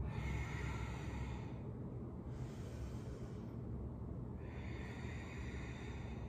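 A person breathing audibly during a strenuous yoga flow: three long, airy breaths, each a second or more, over a steady low hum.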